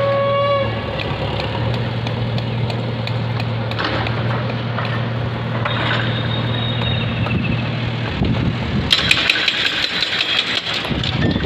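Engine idling with a steady low hum that fades about eight seconds in. A short steady tone sounds right at the start, and a rush of wind on the microphone follows from about nine seconds in.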